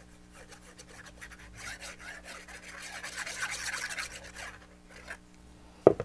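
Scratchy rubbing of a fine-tip glue bottle being drawn across cardstock as it lays lines of Art Glitter Glue, from about a second and a half in until about four and a half seconds. A single sharp knock comes near the end.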